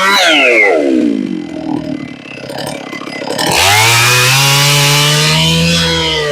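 Big chainsaw on a 56-inch milling bar drops off throttle, its pitch falling steeply, runs low for a second or so, then is revved sharply back up to a steady full-speed scream about halfway through.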